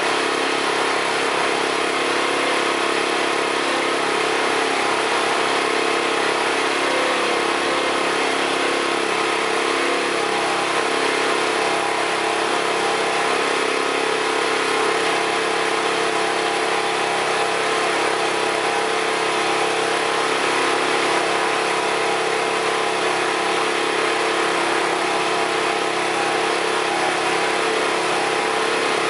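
A steady engine-like drone: a constant hum over an even hiss that holds the same level throughout.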